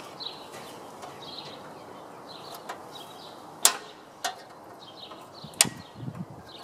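Open-ended spanner working a rusty radiator retaining bolt loose: two sharp clinks about two seconds apart, with a few lighter taps between.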